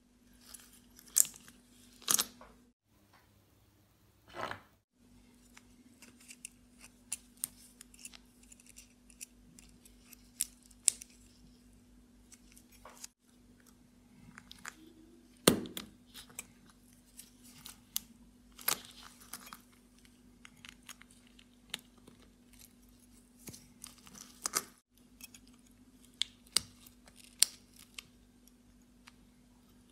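Irregular small metallic clicks and clinks as a spring bar tool works at the lugs to release a Seiko Superior's steel bracelet from the watch case.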